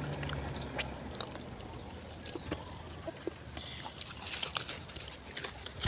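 Wet eating sounds: fingers squelching pork curry into rice and mouth sounds of chewing, with scattered soft clicks and smacks that cluster near the end.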